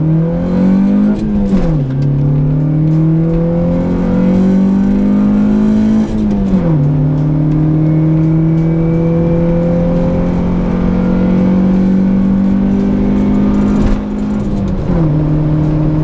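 Honda Civic's D16Y8 1.6-litre SOHC VTEC four-cylinder engine accelerating through the gears, heard from inside the cabin. The engine pitch climbs, then falls at each upshift: about one and a half seconds in, about six and a half seconds in, and again shortly before the end.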